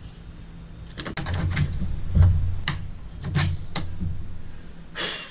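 A string of light clicks and knocks from outrigger mount hardware being handled, over a low rumble.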